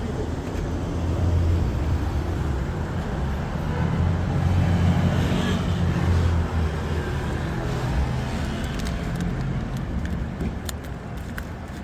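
Street traffic: a motor vehicle's low engine rumble swells and fades as it passes, over a steady city background. A few light clicks near the end.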